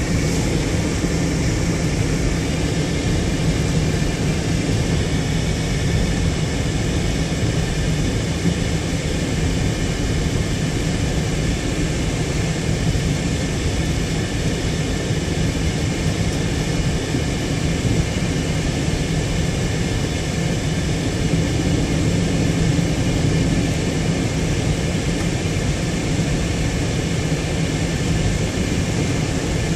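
Steady cabin noise of a car driving at road speed: engine and tyre drone with a low hum, unchanging throughout.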